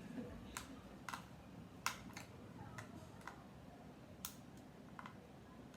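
About seven sharp clicks at irregular intervals from a plastic toy and its packaging being handled.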